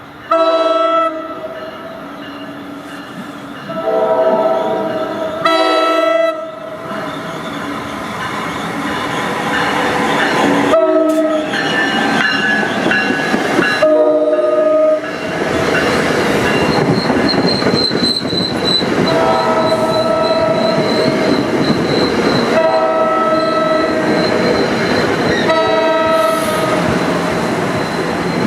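Train horn sounding a series of blasts, some short and some held several seconds, as a passenger train comes through. Under the horn the train's rolling noise builds up, and from about the middle a thin high squeal runs for several seconds.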